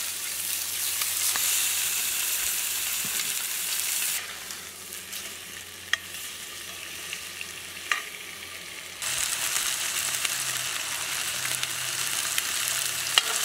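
Pink salmon fillets sizzling in a hot cast iron skillet. The sizzle drops quieter about four seconds in and comes back loud about nine seconds in, with two sharp clicks of the metal spatula against the pan in between.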